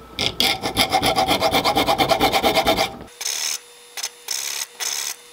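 Triangular file cutting saw teeth into the edge of a thick steel feeler-gauge blade clamped in a vise, steel rasping on steel. Quick short strokes with a faint ring under them give way, about three seconds in, to slower, longer strokes about two a second.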